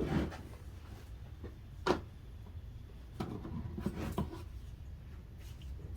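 Light handling noises: a few soft knocks and rubs, one just before two seconds and a cluster a little after three seconds, over a low steady room hum.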